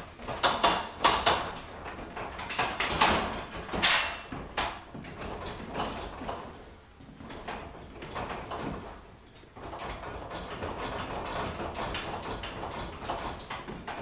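Footsteps and knocks of a person climbing the steel end-frame ladder of a MetalTech baker-style scaffold and walking across its plywood deck, with the frame rattling as it shifts. The knocks are loudest during the climb in the first few seconds.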